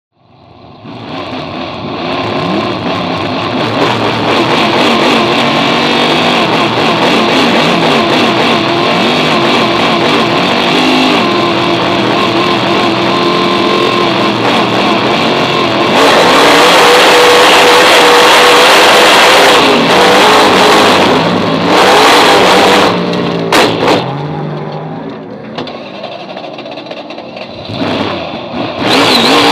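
Superstock speedway car's V8 engine at racing speed on a dirt oval, heard from inside the cockpit. The pitch rises and falls with the throttle, loudest past the middle, easing off a few seconds before the end, then accelerating hard again.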